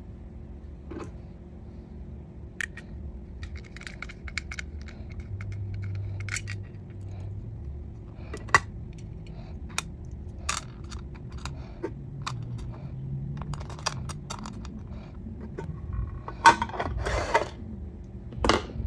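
Small clicks, taps and light scrapes of a diecast model car and its hard plastic display base being handled, with a small screwdriver worked at the underside of the base. There is a brief stretch of scratchy rustling a little before the end.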